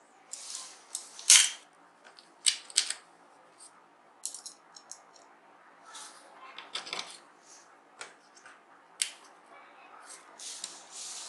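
Screwdriver fastening the screws that hold a keyboard's amplifier and power-supply board, with small parts handled: irregular clicks, taps and short scrapes, the loudest a sharp click about a second in.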